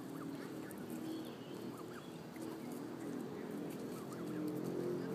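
Canada geese and their goslings calling softly: a scatter of short rising chirps over a low, steady murmur.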